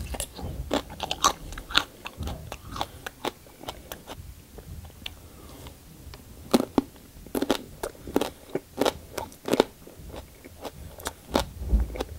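A person biting into and chewing thick slices of raw aloe vera leaf, skin on: many short, irregular crunches as the leaf is chewed.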